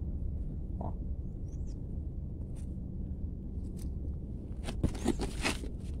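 Fingers scraping and parting loose garden soil around radish plants close to the microphone: scattered small crackles, with a louder cluster of rustling crackles near the end, over a steady low rumble.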